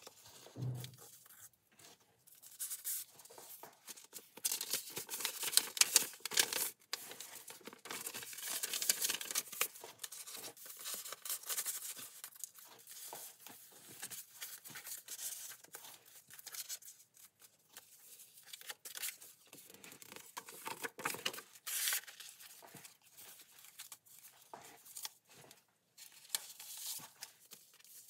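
Paper rustling and crinkling in irregular bursts as the pages, envelope pockets and tucked cards of a handmade junk journal are handled and turned.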